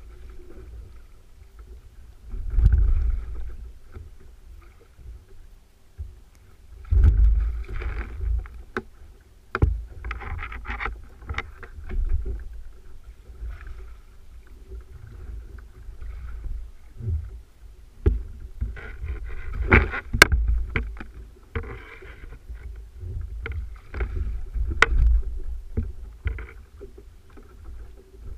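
Water sloshing and splashing against a paddle ski's hull, with wind buffeting the mic in uneven surges every few seconds and a few sharp knocks.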